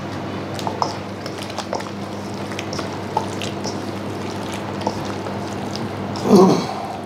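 Bare hands squishing and mixing raw chicken pieces into thick, wet tandoori masala paste in a steel bowl: soft squelches and small clicks, with one louder, brief sound about six seconds in, over a steady low hum.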